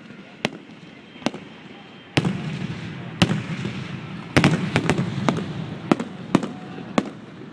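Aerial fireworks bursting: a dozen or so sharp bangs at irregular spacing, coming thickest in a barrage about two to five seconds in, with crackle and rumble between them.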